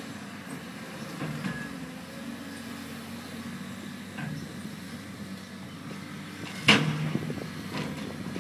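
CAT hydraulic excavator's diesel engine running steadily while the bucket works the felled tree, with a few knocks and one loud sharp crack about two-thirds of the way through.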